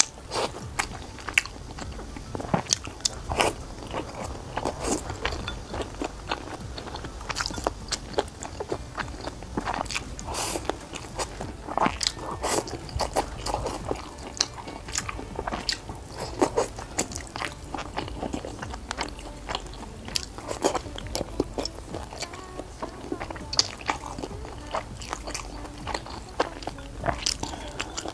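A person chewing and biting into sweet and sour pork ribs, with many short, irregular crunches and clicks throughout.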